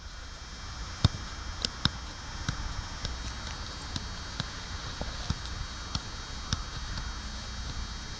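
A football being kicked and touched, heard as irregular sharp thuds, the loudest about a second in, over a steady background hiss.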